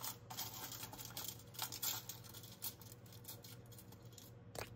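Long acrylic fingernails tapping and clicking lightly on a tabletop: a quick scatter of small clicks over the first two or three seconds, then one more tap near the end.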